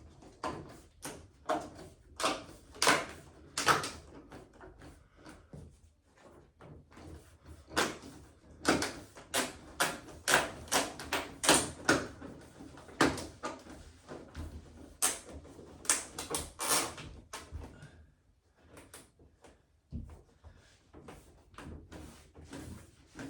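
Irregular clacks, taps and knocks of a display-cabinet panel and its locking strip being handled and pressed into the frame, louder clusters of knocks a few seconds in and again through the middle.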